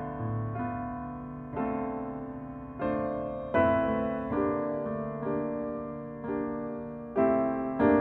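Background piano music: slow chords, a new one struck about every second and left to fade.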